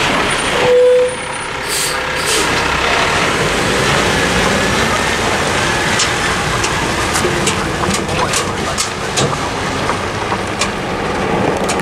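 Dump truck's diesel engine running as the truck crosses the railroad tracks and pulls away on a gravel road, with scattered sharp clicks of gravel under the tyres in the second half. A short steady tone sounds about a second in and is the loudest moment.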